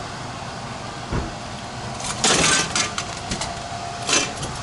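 Milk bottle being taken out of a vending machine's delivery slot: a soft knock about a second in, then a loud clattering rattle and a couple of sharp clicks, over a steady machine hum.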